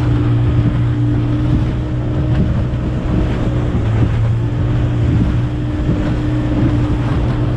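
Racing speedboat's engine running at a steady pitch, heard from on board, with wind buffeting the microphone and water rushing past the hull.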